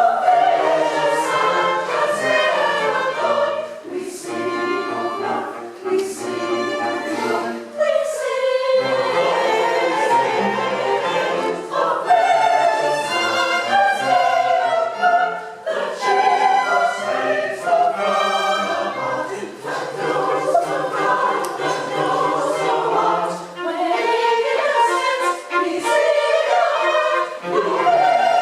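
Choir singing a classical choral piece, accompanied by a string ensemble.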